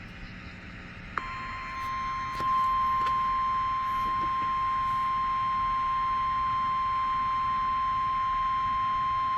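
NOAA Weather Radio warning alarm tone: one steady, unbroken high beep that starts about a second in, over a background hiss of radio reception. The tone marks an emergency alert message that is about to follow.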